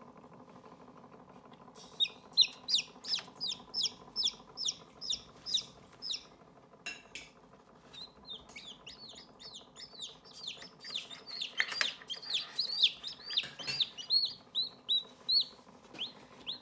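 Newly hatched chicken chicks peeping: quick high peeps, each falling in pitch, about three a second. They come in a first run, then after a pause of about two seconds a longer run, over a faint steady hum.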